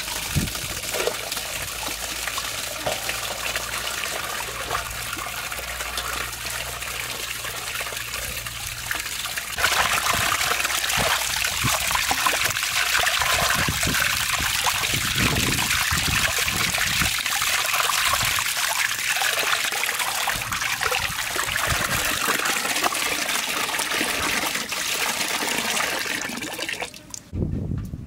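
Water pouring from a plastic pipe tap into a stainless steel basin in a steady stream. About ten seconds in it grows louder and splashier as hands wash a piece of raw beef under the stream, until it drops away near the end.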